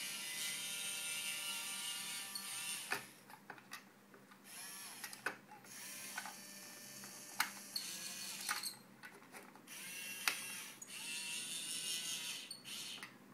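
Small geared motors of a toy robot arm kit whirring in several runs of a few seconds each, stopping and starting, with short clicks between the runs.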